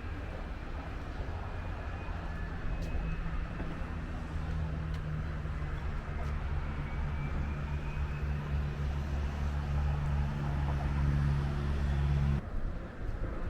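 Aircraft engine noise: a low rumble that slowly grows louder, then cuts off suddenly near the end.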